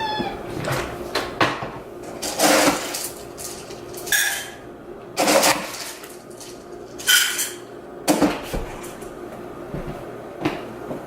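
Household clatter: a run of about eight separate knocks and clinks, like cupboard doors and dishes being handled, in a small room. A cat meows once at the very start.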